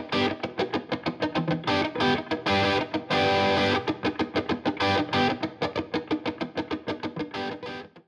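Channel intro music: a guitar riff of rapid, repeated picked notes, cutting off abruptly just before the end.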